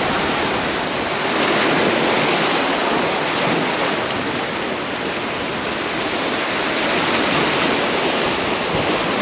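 Sea surf washing in and breaking over shoreline rocks, a steady rush of water that swells and eases, with wind buffeting the microphone.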